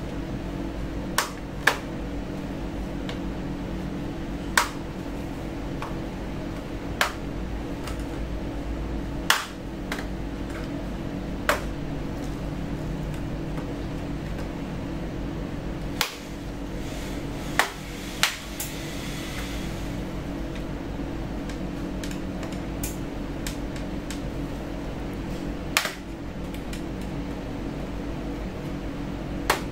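Plastic snap clips of an Asus A407M laptop's bottom case clicking loose one by one as the case is pried open with a blunt tool: about a dozen sharp clicks at irregular intervals over a steady low hum.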